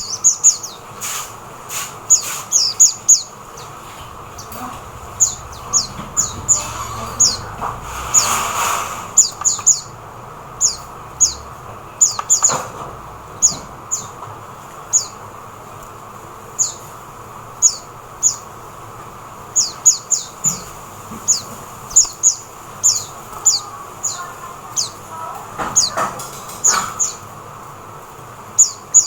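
Oriental white-eye giving short, thin, high chirps that fall in pitch, in irregular runs of one to four notes, over a faint steady background hiss. A brief rush of noise swells and fades about eight seconds in.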